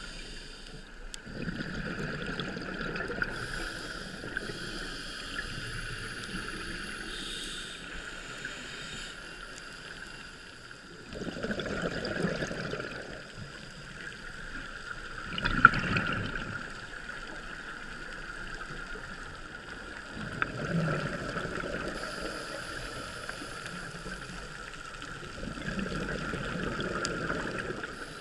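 Underwater sound of a scuba diver's regulator: a burst of exhaled bubbles every four to five seconds, each lasting a second or two, over a steady high hum.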